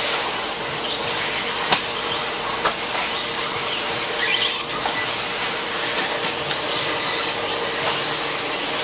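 Electric 4WD RC buggies with 13.5-turn brushless motors running laps on a dirt track: a steady high-pitched motor and drivetrain whine over a hiss. A couple of sharp clicks come from the cars hitting the track.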